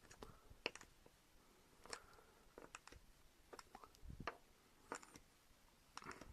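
Faint, irregular clicks and taps of a 9/32 deep socket working against a small plastic GM fuel line connector, as a spacer and O-ring are pushed down into it by hand.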